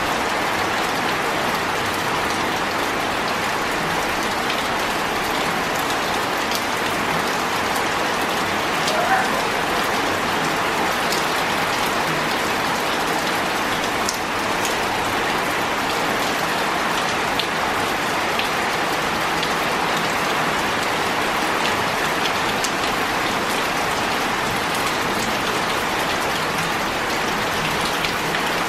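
Heavy rain falling steadily on wet stone paving slabs, splashing into shallow pooled water, with scattered individual drop ticks.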